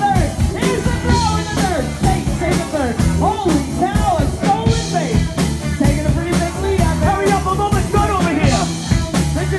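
Live rock band playing with a drum kit, with singers' voices amplified through the PA over it.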